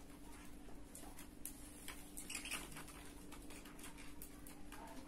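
Faint rustling and scattered light ticks of knitted wool and a metal tapestry needle being handled as a seam is sewn, over a steady low hum.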